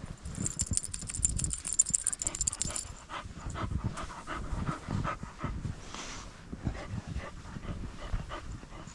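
Shar-pei panting as it wades through deep snow, with repeated crunching footsteps in the snow throughout.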